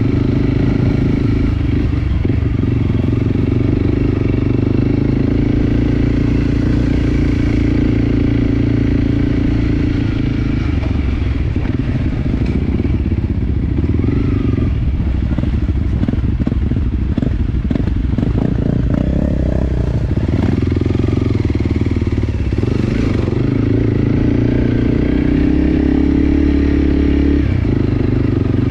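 Enduro dirt bike engine running steadily under way, with a stretch of rattling and knocking about halfway through.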